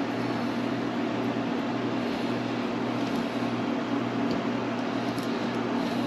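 Steady mechanical hum with an even buzzing tone that doesn't change, like a fan or air-conditioning unit running in the room.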